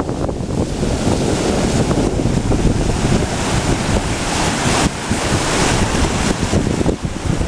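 Atlantic surf breaking over boulders and washing up a sand beach, with wind buffeting the microphone in a low, fluttering rumble.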